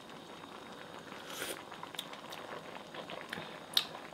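Quiet room tone with a few faint small clicks and one short breathy hiss about a second and a half in.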